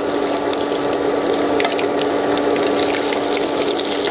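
Potato, minced meat and egg patties shallow-frying in hot oil in a pan: steady sizzling with many small crackles and pops.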